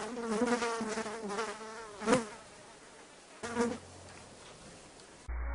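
A buzzing drone whose pitch wavers, loud at first and fading over about two seconds, broken by a brief sharp sound about two seconds in and a short burst about three and a half seconds in.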